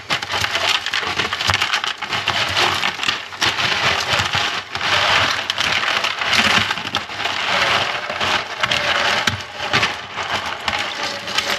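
A live striped bass being grabbed by hand and wrestled out of a plastic bucket: continuous rattling and scrabbling with many sharp knocks against the bucket.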